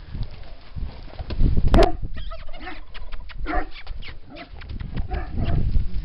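A horse galloping and bucking through snow: irregular low thuds. A sharp knock comes about two seconds in, and several short animal calls follow in the second half.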